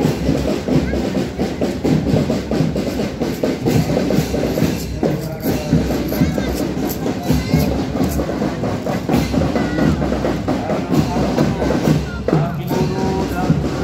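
Marching drum band playing, with drums and percussion beating throughout and voices mixed in.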